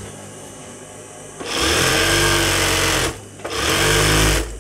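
Sewing machine stitching a seam that joins petticoat panels. It runs in two bursts: the first starts about a second and a half in and lasts about a second and a half, then after a brief stop it runs for about another second.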